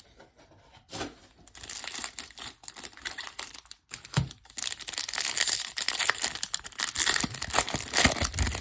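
Wrapper of a baseball card pack crinkling as it is torn open and handled: a dense crackle that starts properly about a second in and keeps going.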